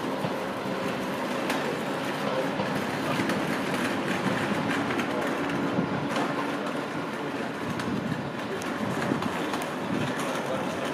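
Transport for Wales Class 197 diesel multiple unit running slowly over pointwork, its diesel engines humming under irregular wheel clicks and clatter over the rail joints and crossings.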